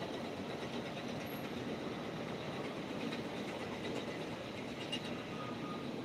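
Steady background noise, a continuous rush with a faint high whine above it; no speech.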